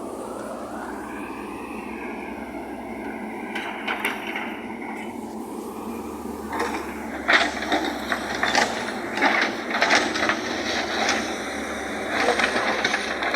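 Construction machinery running steadily, with a rapid run of clanks and knocks from about halfway through.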